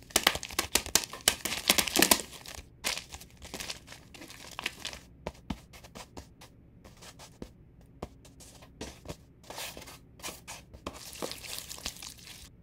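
Close-up food-prep handling: loud crinkling for about the first two seconds, then scattered soft taps and rustles as cheese slices are laid on a bun, and a spoon spreading sauce near the end.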